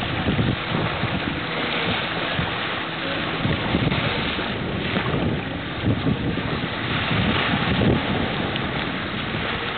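Wind buffeting the microphone in uneven low gusts, over a steady rush of open-air noise from the waterfront.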